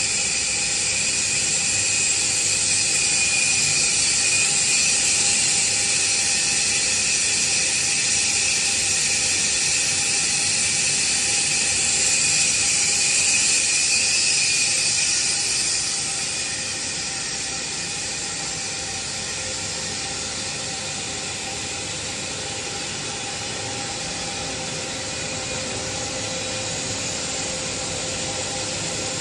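A WNS20-1.25-YQ 20 ton/hr gas-fired fire-tube steam boiler running, its burner and combustion fan making a loud, steady hiss with several steady whining tones through it. The level drops a little about halfway through, then holds steady.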